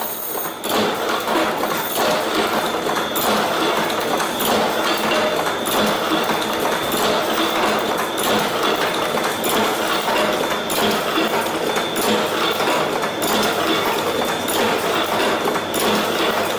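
Automatic chain-making machines running: link-forming tools clacking in a fast, steady rhythm as wire is bent into steel chain links, with a faint steady high whine underneath.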